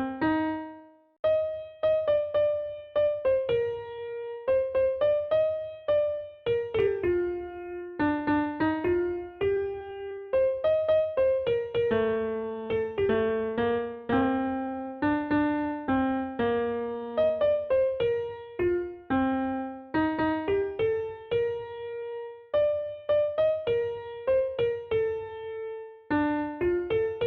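Background music: a piano or electric-piano melody of struck notes, each ringing and fading.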